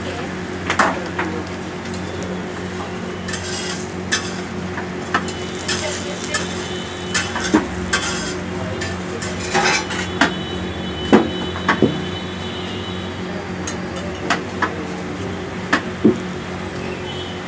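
Metal spatula scraping and clacking irregularly on a hot iron dosa griddle, over a steady sizzle and a low steady hum.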